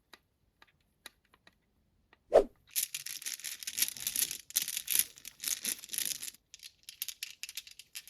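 Marbles running down a HABA marble run slope: a few faint clicks, a single knock about two seconds in, then dense rattling clatter for about three and a half seconds that thins to scattered clicks near the end.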